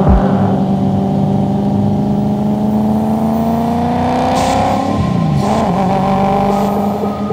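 Swapped-in Ferrari/Maserati F136 V8 in a BMW M3 accelerating, its note climbing steadily for about five seconds. A short hiss comes just before the revs drop suddenly, and the engine then runs on at a steady note.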